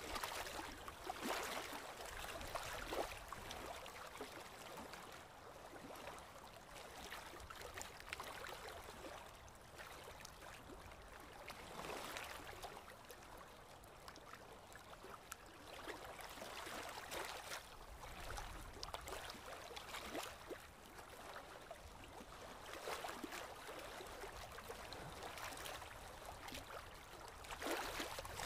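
Paintbrush with acrylic paint stroking and dabbing on paper: a run of irregular brushing sounds, some strokes louder than others.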